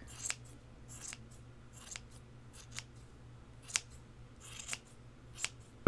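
Pink-handled craft scissors snipping yarn as a pom-pom is trimmed: a series of separate, irregular snips, roughly one a second, some sharp clicks of the blades closing and some softer swishes of cut yarn.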